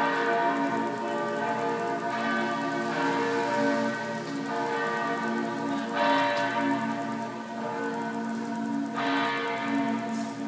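Several church bells ringing together, their overlapping tones sustained and re-struck throughout.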